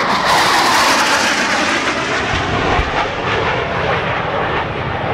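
Jet noise from two AV-8B Harriers' Pegasus turbofan engines as they fly past, loudest about a second in and then slowly easing as the jets pull away.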